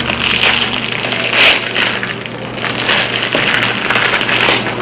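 Gift packaging being unwrapped by hand: irregular crinkling and rustling, with a louder rustle about a second and a half in.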